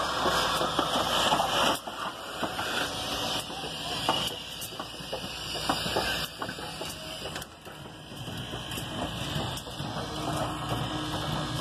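1925 Baldwin 2-8-0 steam locomotive moving slowly past at close range: steam hissing loudly for the first couple of seconds, then dropping away, over a run of rattling clanks and clicks from its running gear and wheels on the rails.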